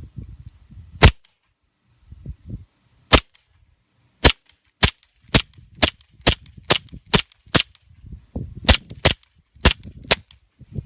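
Colt-licensed 1911 airsoft pistol firing about fourteen sharp shots, spaced out at first and then in a quicker string of about two a second, until it runs out.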